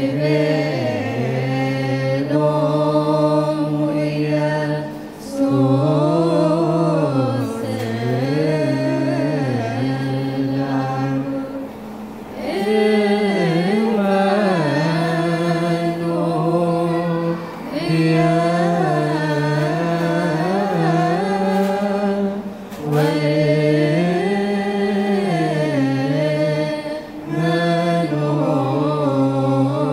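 Choir singing a wereb, an Ethiopian Orthodox chanted hymn, in phrases of held notes that bend up and down, with short breaks between phrases every few seconds.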